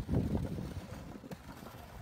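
Wind buffeting the microphone, with irregular crunching and scraping over packed snow, loudest in the first half second.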